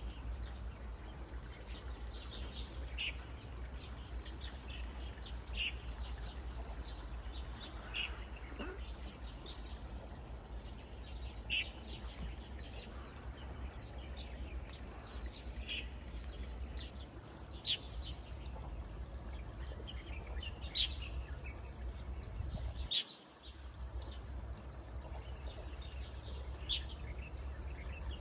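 Insects trilling steadily in a high, pulsing buzz, with short bird chirps every few seconds, over a low steady rumble.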